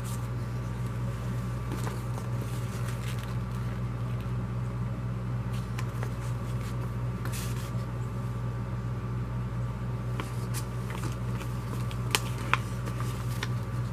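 Paper brochures and a business card being handled and shifted, with faint rustles and two sharp clicks near the end, over a steady low hum.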